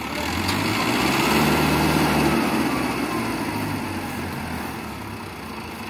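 Diesel engine of a Mahindra 655 DI tractor carrying a Balkar combine harvester, running steadily; it grows louder about a second in and eases back down over the following seconds.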